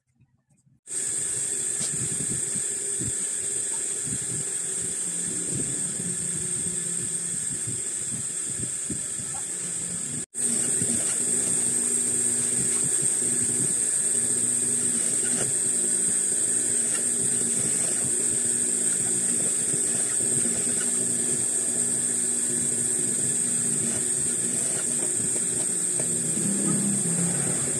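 Industrial single-needle sewing machine running steadily, a high motor whine with stitching chatter as fabric is fed under the needle. It starts abruptly about a second in and drops out for an instant a little over a third of the way through.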